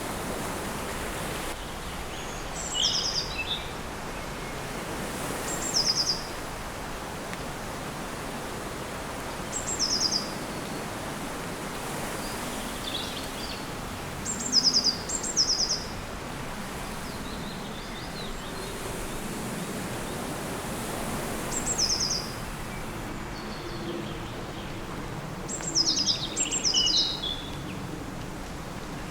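Small bird chirping: short high runs of quick notes every few seconds, over a steady outdoor background hiss.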